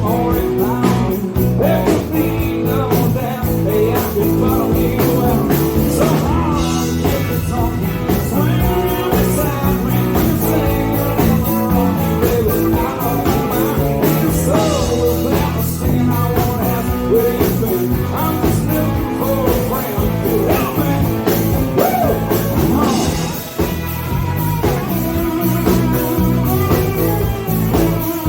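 A band playing a rock song live: a steady drum beat under guitars, with a wavering lead line and no clear lyrics. The music dips briefly about 23 seconds in.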